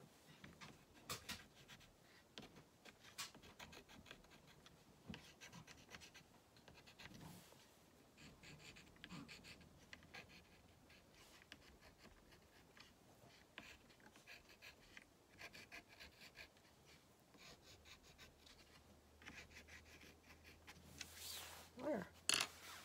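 Faint, scratchy strokes of a small paintbrush and a wipe rubbing paint over a painted wooden sign, coming in short runs, with a louder handling noise near the end.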